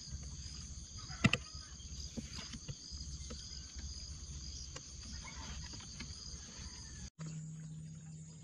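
Insect chorus from the riverbank trees, a steady high buzzing with a faint pulse, over a low rumble. There is one sharp knock about a second in. After a cut near the end the insect sound shifts and a low steady hum comes in.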